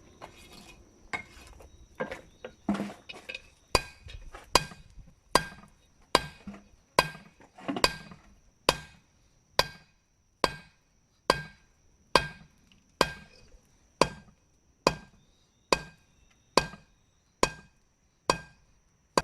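Hammer forging the bevels into a hot damascus steel katana blade on an anvil. A few lighter, uneven taps give way, about four seconds in, to a steady rhythm of sharp ringing blows, a little more than one a second.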